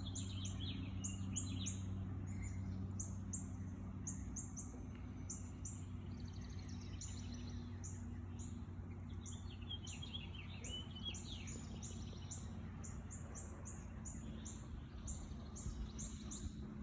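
Garden birds singing: many short, high chirps repeated over and over, with a few quick falling trills in the middle. A steady low hum runs underneath.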